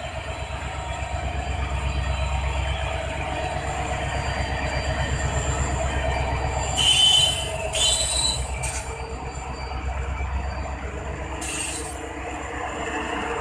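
WDP-4B diesel locomotive's 16-cylinder two-stroke engine rumbling as it pulls the train out and passes close by. The train then rolls on with its LHB coaches clattering past, the rumble easing after about 11 seconds. Short high-pitched wheel squeals come about 7 and 8 seconds in and again near the end.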